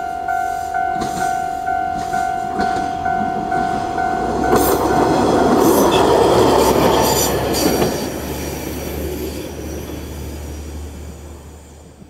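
Level-crossing alarm ringing in two-tone pulses about three times a second, fading out about halfway through. From about four seconds in, a わ89-310 series diesel railcar passes over the crossing with its wheels clicking over the rail joints and its engine droning low, then fades away.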